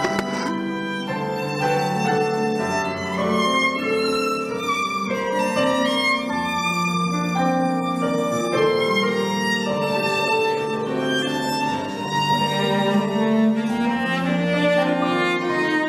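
Instrumental background music: a violin melody of long held notes over a quieter accompaniment.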